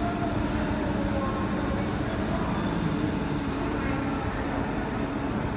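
Plastic injection moulding machine running: a steady mechanical hum and hiss, with a faint whine that shifts slightly in pitch.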